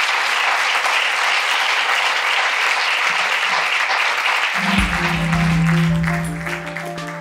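Audience applauding, steady and loud. Music with sustained notes comes in about two-thirds of the way through as the clapping fades.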